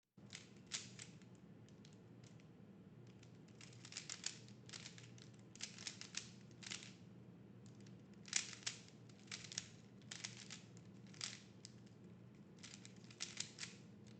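Plastic Rubik's Cube (3x3 speedcube) being turned by hand during a timed solve: its layers click and clack in quick flurries, with short pauses between them, over a faint steady low hum.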